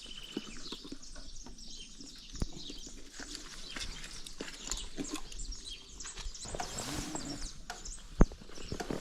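A horse shifting and stepping close by: scattered knocks and clicks of hooves and tack, with a few short bird chirps near the start and one sharp knock about eight seconds in.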